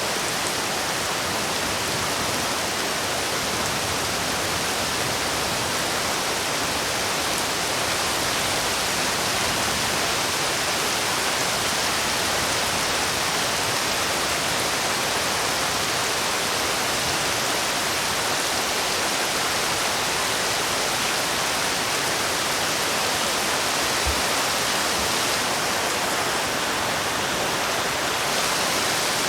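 Heavy rain falling in a steady, dense hiss that does not let up.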